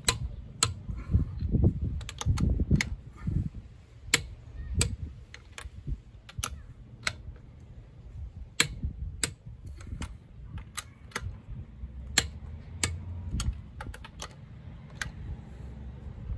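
Click-type torque wrench being worked around a car's wheel nuts: sharp metal clicks, often in pairs about half a second apart, with low knocks from handling the wrench and socket. The clicks come from the wrench head and signal that each nut has reached its set torque.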